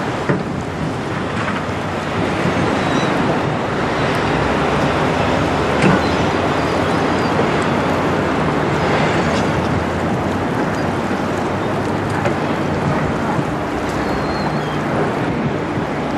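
Steady wind rushing over the microphone, with the low, even drone of the passing bulk carrier Algoma Innovator's engines underneath.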